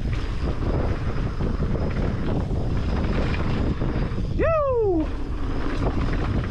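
Wind buffeting the camera and mountain bike tyres rolling over a gravel trail during a fast descent. About four and a half seconds in, a rider gives one short whoop that falls in pitch.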